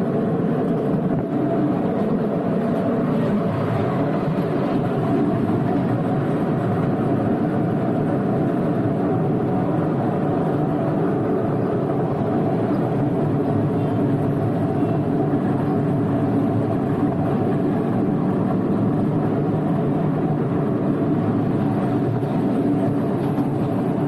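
Small open-car tourist train running along its track: a steady, unbroken running noise of the train and its carts, with a faint constant motor hum.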